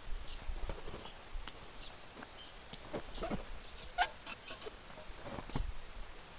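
A backpack being packed by hand: fabric and stuff sacks rustling, with a few sharp clicks and knocks from gear, three of them standing out about 1.5, 2.7 and 4 seconds in.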